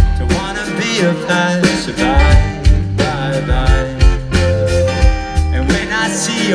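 Live band playing an upbeat folk-pop song at full volume: a steady kick-drum beat under bass and plucked strings.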